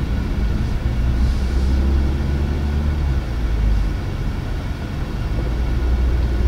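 Steady low rumble of road and running noise inside the cabin of a moving GAC M8 minivan, heard from the rear seat.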